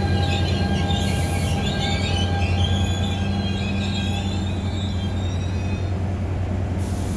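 NJ Transit ALP-45DP dual-mode locomotive running on diesel as it pulls away with its train, a steady low engine drone, with scattered high-pitched wheel squeals from the rails during the first few seconds.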